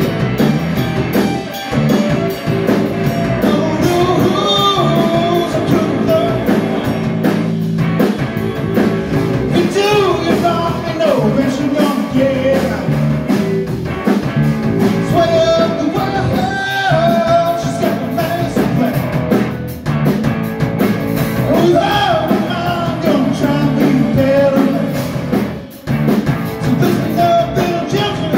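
Live rock band playing: a man singing over electric guitar, bass guitar and drum kit.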